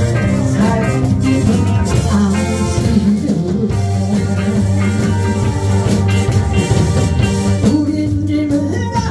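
Live band playing a Korean trot song on drums, electric guitar, bass guitar and keyboard, with a lead vocalist singing into a handheld microphone.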